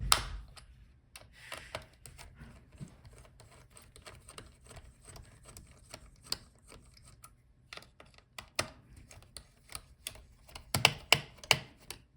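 Small irregular clicks and taps of a screwdriver working the screws that hold a laptop's heatsink, with a sharper knock at the start and a quick run of louder clicks near the end.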